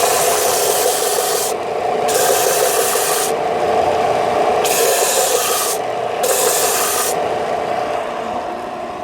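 Sander working wooden blocks cut from a 4x4 post: a steady hum under a rasping hiss that swells four times as the sander is worked over the wood.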